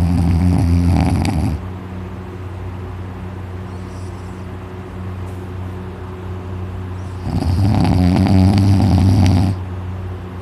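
A sleeping man snoring very loudly. One long snore ends about a second and a half in, then comes a quieter breath, and a second loud snore runs from about seven seconds to nine and a half.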